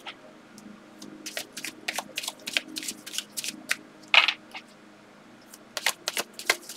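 A tarot deck being shuffled by hand: a run of irregular card clicks and slaps, loudest about four seconds in, with a short pause just before the end, over a faint steady hum.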